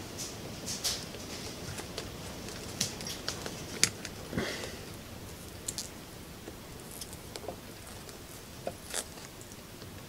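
Small, sharp clicks and light scrapes of hands working a cordless drill's plastic trigger switch and its soldered wires, scattered irregularly over a steady faint hiss.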